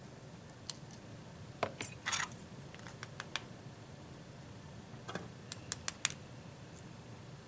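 Small metal clicks and scrapes of a tool working inside a pin-tumbler lock's pin chamber, trying to free a number 2 pin that is stuck, caught in its spring. The clicks come in two short clusters, one about a second and a half in and another about five seconds in.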